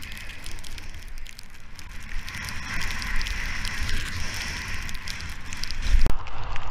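Skis sliding and scraping over snow with a crackling hiss, and wind rumbling on the microphone, growing louder through the run.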